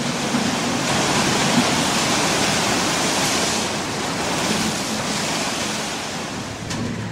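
Sea surf: waves breaking and washing on the shore as a steady rushing noise that swells in the middle and eases a little toward the end.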